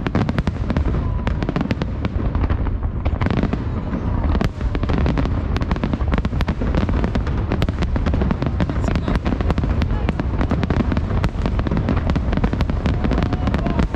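Aerial fireworks shells bursting in quick succession during a finale-like barrage, a dense run of bangs and crackles over a continuous low rumble; the bangs come thicker after about three seconds.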